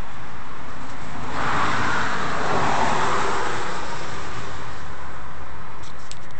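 Road traffic noise: a vehicle passing, its tyre-and-engine hiss swelling about a second and a half in and fading by about four seconds, over a steady background hum, with a few light clicks near the end.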